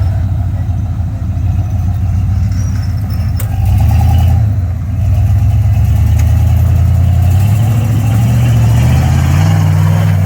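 Jeep engine running under load, its pitch stepping up in revs near the end.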